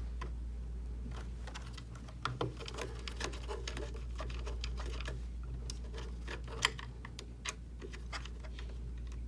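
Irregular light clicks and taps of a hex driver and small metal fasteners being handled while a recessed nut and screws holding an ROV thruster are undone, over a steady low hum. One click about two-thirds of the way through is sharper than the rest.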